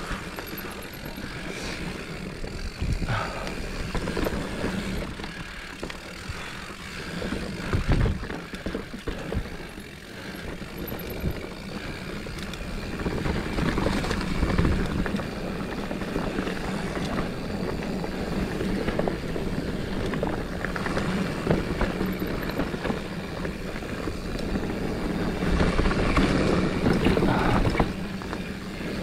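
Mountain bike ridden over a rocky trail: the tyres roll over dirt and rock, and the chain and frame rattle, with frequent knocks as the wheels hit rocks.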